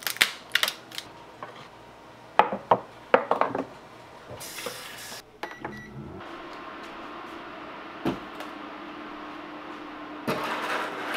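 A kitchen knife cracking through a Dungeness crab's shell on a wooden cutting board, in a series of sharp cracks and clicks. About halfway through, a portable induction cooktop beeps as its power button is pressed, and its cooling fan then runs with a steady hum.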